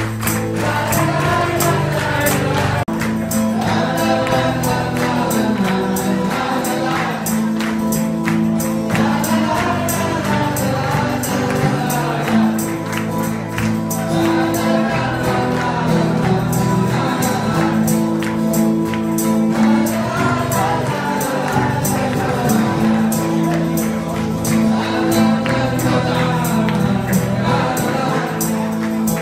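Live acoustic music: strummed acoustic guitar with singing, and a tambourine keeping a steady beat.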